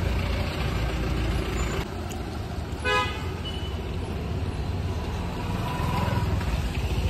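Steady street traffic noise, with a vehicle horn giving one short toot about three seconds in.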